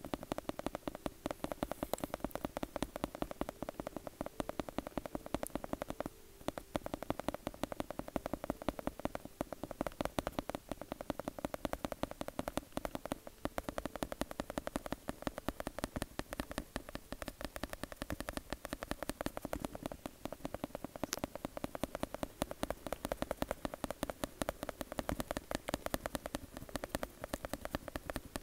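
Rapid, continuous tapping, many taps a second, with a brief pause about six seconds in.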